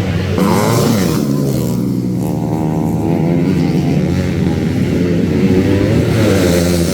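Motocross motorcycle engines revving hard and easing off again and again, their pitch rising and falling as the bikes race.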